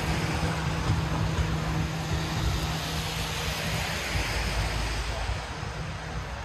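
Wet city street in the rain: a steady hiss of rain and tyres on wet road, with a vehicle engine humming steadily and then fading away about four seconds in.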